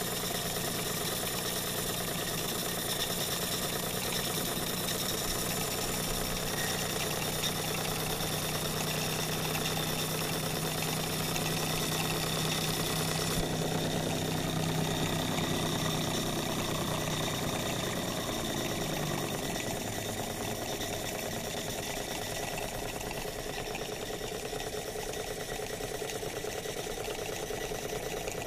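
Small live-steam model engines running steadily, with a low hum that fades out about two-thirds of the way through.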